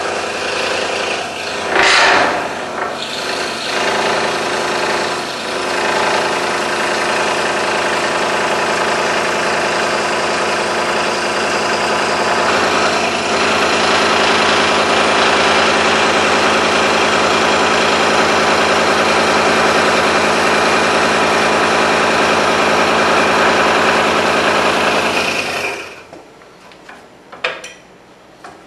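Scroll saw running and cutting through 1-inch-thick wood with a new, sharp blade, a steady mechanical buzz of the reciprocating blade. It is loudest about two seconds in and cuts off near the end, followed by a few light knocks.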